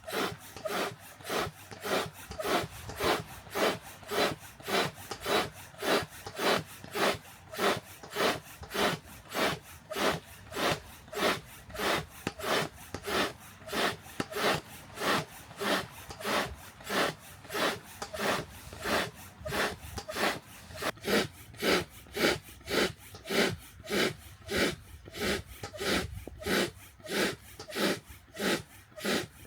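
A hand saw cutting through wood with steady back-and-forth strokes, about two strokes a second, keeping an even rhythm throughout.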